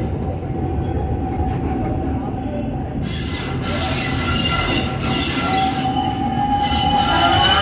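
Passenger cars of a narrow-gauge steam train rolling on the rails: a steady low rumble of wheels on track with a thin, steady wheel squeal. From about three seconds in, the squealing grows brighter, with several high tones.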